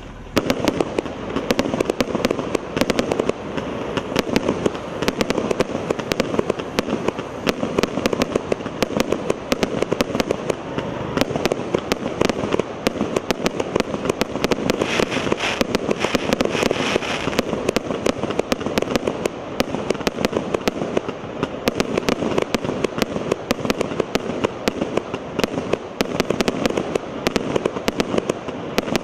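Legenda "New Year Party" A7535 firework cake, a 100-shot, 1-inch-calibre battery, firing shot after shot: a dense, unbroken stream of launch pops and crackling bursts, several a second.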